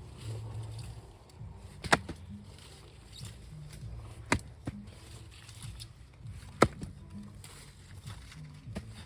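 Three sharp strikes of a hand tool, evenly spaced about two and a half seconds apart, in the slow rhythm of digging a planting hole.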